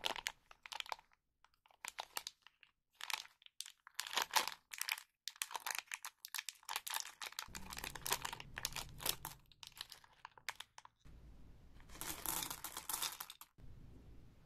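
Candy wrappers crinkling and tearing as they are handled and opened by hand, in irregular bursts of crackle, with a longer spell of crinkling about twelve seconds in.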